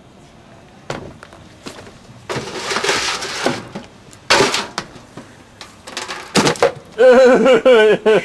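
A rotten, mushy pumpkin breaking apart and dropping in chunks into a galvanised metal bucket: several sudden crunching crashes, the loudest a little past the middle. A person's voice lets out a drawn-out wavering cry near the end.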